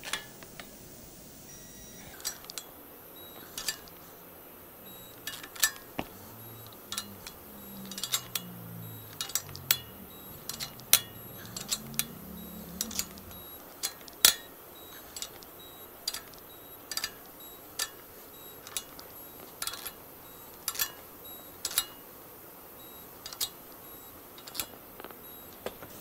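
Sharp metallic clicks and clinks, roughly one a second and irregularly spaced, from hand tools and the flex plate of a DT466E diesel as its flex plate bolts are gone around after torquing. A low rumble runs through the middle stretch.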